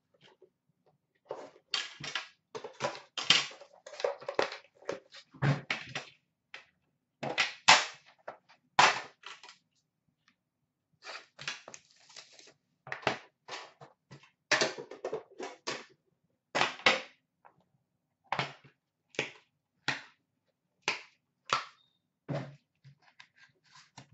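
Hands handling a tin box of hockey cards, its lid lifted off and set down and the tin and its contents shifted about. The result is strings of sharp clicks and knocks in quick clusters, with short pauses between them.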